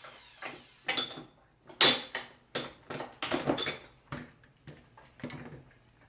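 Irregular metallic clinks and knocks, about a dozen of them, from parts and cords being handled on a workbench, with the loudest knock about two seconds in.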